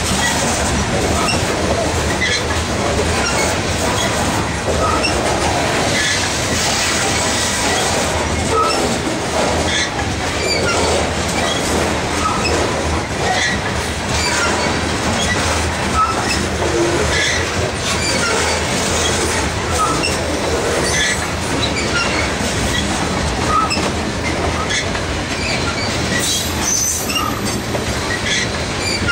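Freight train cars rolling past at close range: a steady clatter and rumble of steel wheels on the rails. Short, high squeals from the wheels come through it now and then.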